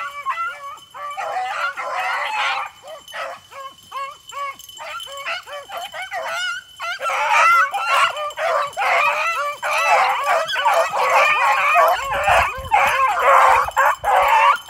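A pack of beagles baying and yelping on the run, several voices overlapping. The voices thin out for a few seconds, then from about halfway through many dogs give tongue at once.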